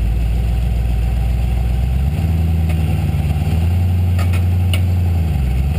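Rock-crawling buggy's engine running under load as it climbs over boulders, its pitch rising about two seconds in and dropping again near the end. A couple of sharp clicks come about four seconds in.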